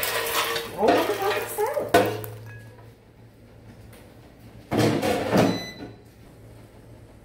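Croutons tipped from an air fryer basket into a glass salad bowl: a sharp knock about two seconds in, then a louder clatter with a brief ring around five seconds in.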